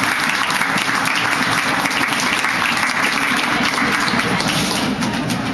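Audience applauding, a dense patter of hand clapping that eases off near the end.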